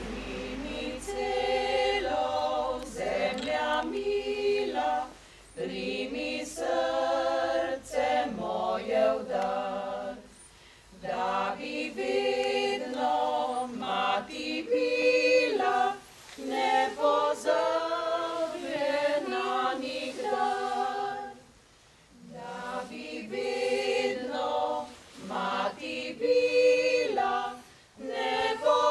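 Small amateur women's choir singing a Slovenian song a cappella. They sing in phrases of about five or six seconds, with short pauses for breath between them.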